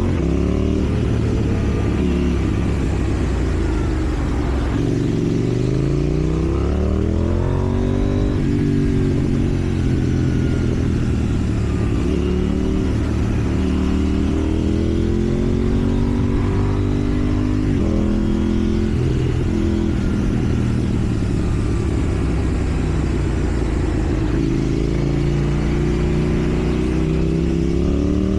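KTM Duke 790 parallel-twin engine through a loud slip-on exhaust, pulling up through the gears several times: the pitch climbs, drops at each shift, and the engine eases off between pulls.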